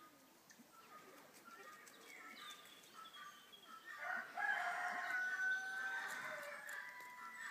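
A cock bird crowing: one long, loud crow starting about four seconds in and lasting about three seconds, after a few faint bird chirps.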